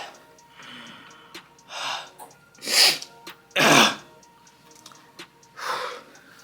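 About five sharp, noisy bursts of breath from a person reacting to the burn of an extremely spicy gummy bear, the two loudest in the middle, like sneezes or coughs. Faint background music underneath.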